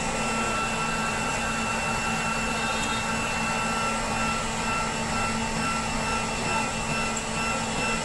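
Hot air gun blowing steadily, a rush of air with a constant whine, heating a phone's cracked screen to soften the glass adhesive.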